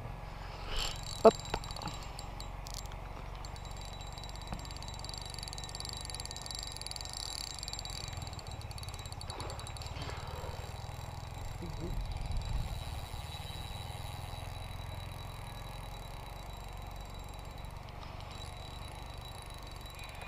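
A sharp knock about a second in, as the fishing rod is struck to set the hook; after that only a faint, steady low rumble.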